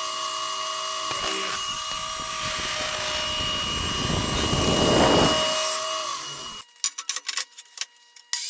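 Power saw cutting through a 4/4 hard maple board: a steady motor whine under the noise of the blade in the wood, loudest about five seconds in. The sound stops abruptly near the end, leaving a few light clicks and knocks.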